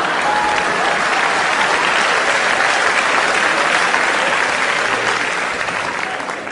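Theatre audience applauding steadily after a joke, dying away near the end.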